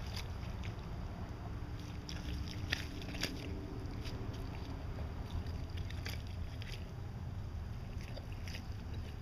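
Nine-banded armadillo digging in soil: irregular short scratches and rustles of its claws in dirt and dry leaves, over a steady low rumble.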